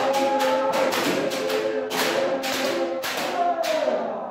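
Kendo practitioners striking with bamboo shinai and stamping the floor, sharp cracks about three a second, under sustained shouted kiai from several voices.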